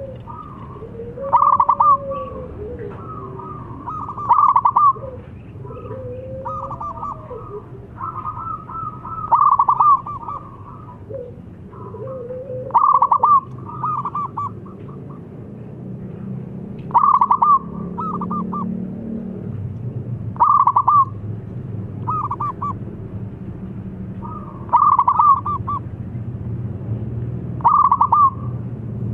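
Zebra dove (perkutut) singing: loud phrases of fast, stuttering cooing notes, repeated about every two to four seconds.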